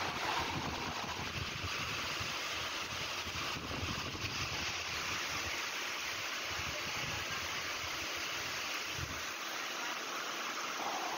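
Steady rush of wind and rain on the microphone at the open door of a moving train in heavy rain.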